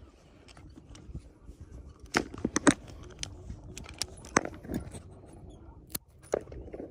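Sharp clicks and snaps of fishing tackle being handled: a wire leader and hook worked by gloved hands, with scissors at the leader near the end. The loudest clicks come in a quick cluster a couple of seconds in.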